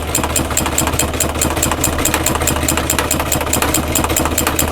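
Sewing machine running steadily, its motor humming under a rapid, even clatter of stitches as it sews a line of upholstery stitching.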